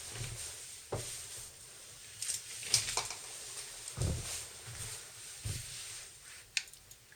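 Scattered light knocks and clicks of handling, with a few low thuds, as objects are moved and set down by hand.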